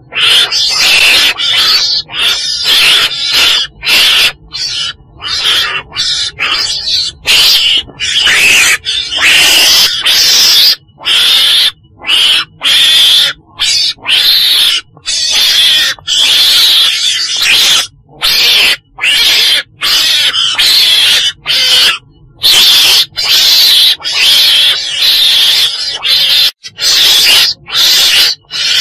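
Loud, rapid, repeated calls of a chồn đèn, a weasel, played as a trapping lure. The calls come in quick runs broken by short gaps, with most of their energy high in the range.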